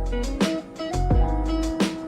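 Background music with a steady beat: a deep bass line, plucked-string notes and regular percussive hits.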